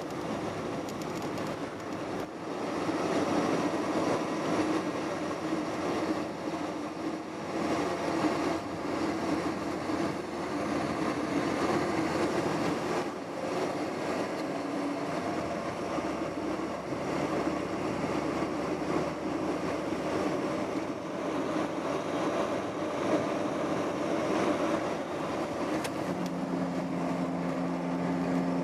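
Steady engine noise with a faint hum, and two low steady tones joining near the end.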